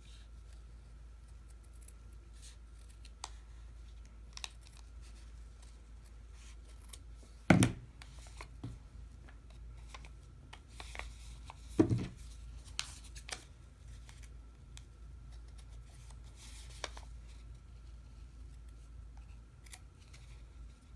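Scissors snipping through two layers of felt, in small cuts at uneven intervals, with two louder thumps about four seconds apart midway.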